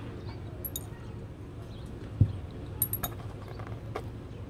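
Light, high glass clinks, a few at a time, from a glass bottle being handled while flower stems are set into it, with one dull knock a little past two seconds in.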